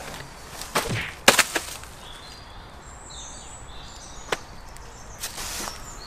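A head of white cabbage being handled, its crisp leaves snapping in a few sharp crunches about a second in. A single click follows later, then a short rustle of dry fallen leaves near the end, with faint bird chirps behind.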